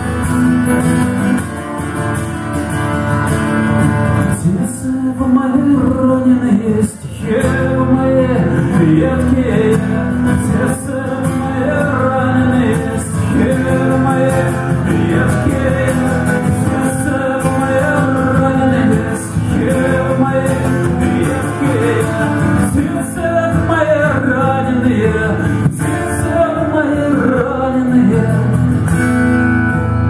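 Acoustic guitar strummed by a male singer-guitarist, with his voice singing a song over it from about four seconds in.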